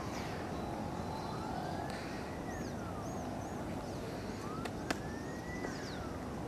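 Siren wailing, rising and falling slowly about every three seconds over steady background noise, with a few high chirps.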